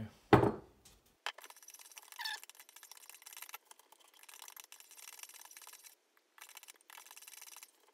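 A short knock about half a second in, then a metal teaspoon stirring and clinking in a ceramic coffee mug, a long run of light scrapes and ticks, along with a paper milk carton being handled.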